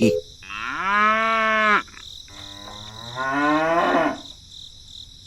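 A cow mooing twice: one long, steady low call, then a second call that rises in pitch.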